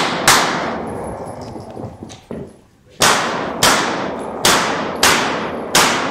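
Smith & Wesson M&P Pro C.O.R.E. pistol firing, each shot ringing out with a reverberant tail in an indoor range hall. Two quick shots come at the start, then a pause of about two and a half seconds, then five shots a little over half a second apart.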